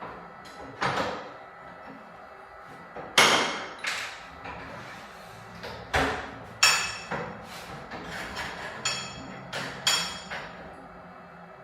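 A series of irregular sharp knocks and clatters, about ten spread over several seconds, some ringing briefly, as lengths of skirting or architrave trim and tools are handled and set down.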